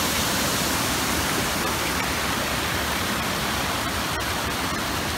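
Steady rush of a waterfall, water pouring and cascading over rock ledges.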